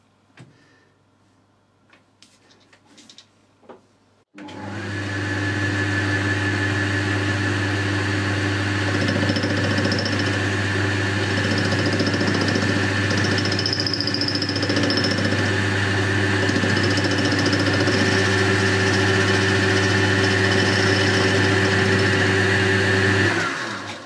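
Boxford metal lathe switched on about four seconds in, its motor and headstock running steadily with the four-jaw chuck spinning, a constant hum with a steady whine over it; it is switched off just before the end and runs down. A few light clicks come before it starts.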